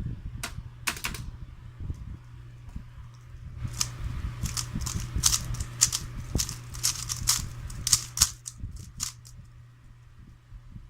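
3x3 Rubik's cube being turned quickly by hand: runs of plastic clacking as the layers snap round, in several bursts with short pauses between, over a steady low hum.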